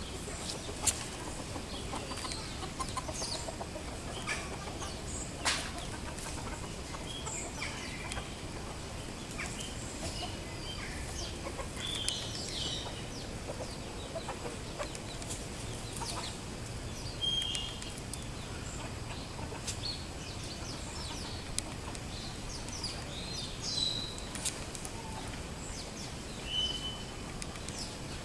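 Farmyard fowl calling: scattered short, high chirps and clucks, with a few sharp clicks, over a steady background hiss.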